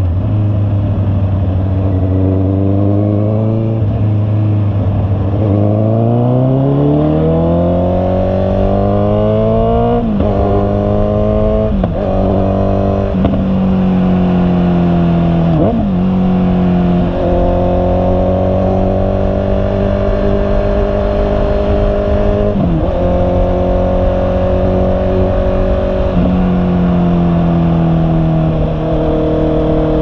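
Honda CB650R's inline-four engine under way: the revs climb smoothly for several seconds, then come a handful of quick gear changes, each a brief sharp dip in pitch, before it settles into a steady cruising note that steps lower near the end. A steady rush of wind and road noise runs underneath.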